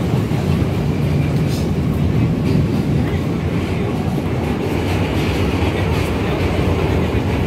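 R160 subway car running through a tunnel, heard from inside the car: a loud, steady rumble of wheels on rail.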